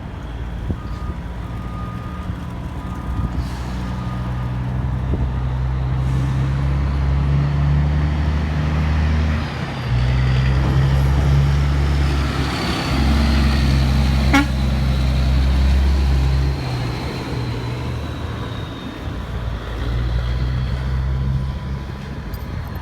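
Straight-piped Freightliner FLD dump truck's diesel engine driving by, its deep exhaust note growing louder toward the middle and then fading, dropping out and returning a few times along the way. A single sharp click comes at the loudest point, and a faint high whistle slowly falls in pitch in the second half.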